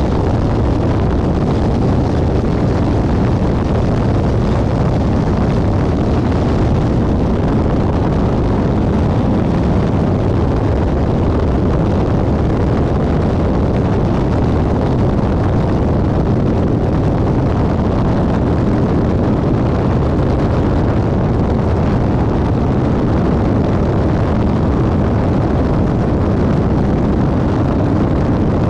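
Steady cabin drone of a Rockwell Commander 112TC in flight: its turbocharged four-cylinder Lycoming engine and propeller running evenly, mixed with the rush of air over the airframe.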